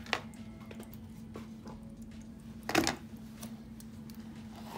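Light clicks and knocks from handling a water-filled glass snow globe and its base, with one louder knock a little under three seconds in, over a steady low hum.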